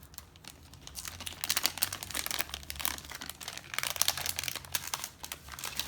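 A crinkly blind-pack wrapper being torn open and handled by hand: dense irregular crackling and rustling that starts about a second in and runs loudest through the middle.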